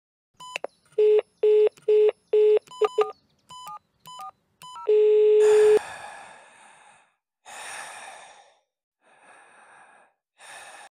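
Gate intercom keypad beeping as its buttons are pressed: a quick run of short electronic beeps at two or three pitches, then one longer call tone about five seconds in. Several short bursts of hiss follow over the intercom line.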